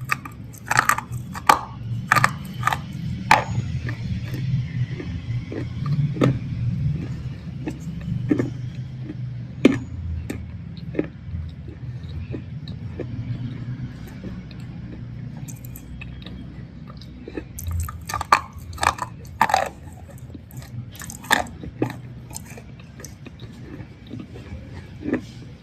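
Close-miked biting and chewing of a thick black slate bar: sharp, brittle crunches come in clusters, most densely near the start and again about two-thirds through, with quieter chewing in between over a steady low hum.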